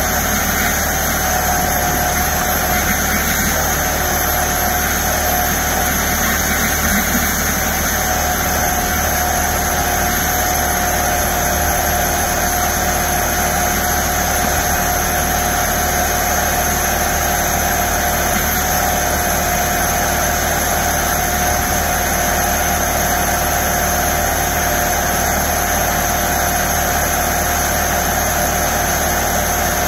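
Detailing equipment running steadily: an unbroken machine drone with a constant mid-pitched whine.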